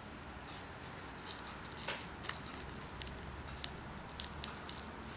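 Dry marigold (Tagetes) seed capsule crackling faintly as rubber-gloved fingers pull it off and break it open, scattered small irregular crackles and clicks.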